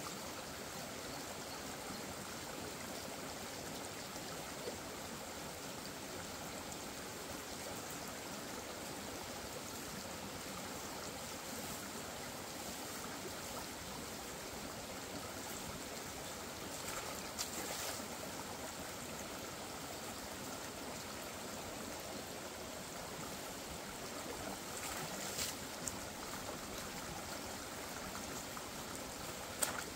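Small shallow stream running over stones: a steady rush of water, with a few faint rustles and crackles near the middle and later on.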